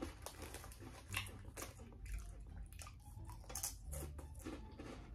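Crunching and chewing white cheddar Cheez-It crackers, a run of faint, irregular crisp crunches.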